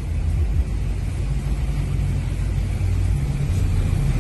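Vehicle driving through shallow floodwater, heard from inside the cabin: a steady low rumble of engine and road with an even wash of noise above it.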